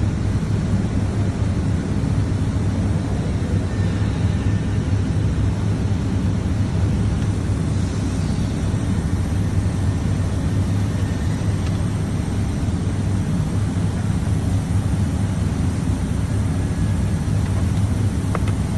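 Steady low mechanical hum and rumble of workshop background noise, even in loudness throughout, with a faint click near the end.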